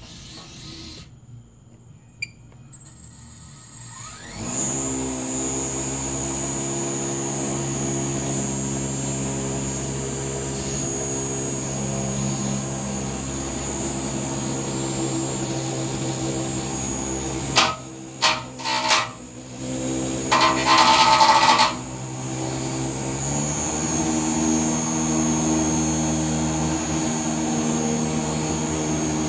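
Small combat robot's spinning carbon fiber dome, a full-body spinner, spooling up on its electric motor and running with a steady hum and a high whine. About two-thirds of the way in come a few sharp clacks and a loud clatter lasting a second or so as the spinning shell hits another robot, then the hum carries on slightly higher.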